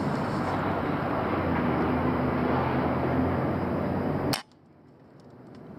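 A single sharp crack of a pre-charged pneumatic air rifle shot close to the microphone, about four seconds in, over a steady low mechanical hum. Right after the shot the background drops away almost to silence and slowly returns.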